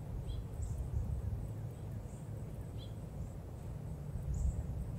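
Outdoor garden ambience: a low, uneven rumble underneath, with about four faint, short bird chirps scattered through.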